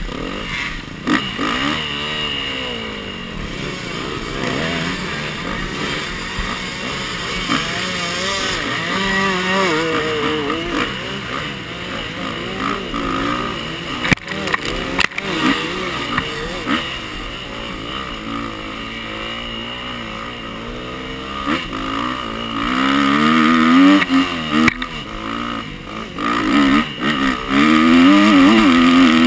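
Dirt bike engine revving up and down as it is ridden over rough trail, with sharp knocks now and then. Near the end it runs louder and higher as the throttle is held open.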